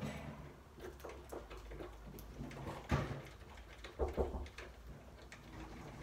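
Scattered small clicks and knocks from hands working at a front door's rim cylinder lock while its two fixing screws are put back, the sharpest knock about three seconds in and a pair about a second later, over a steady low hum.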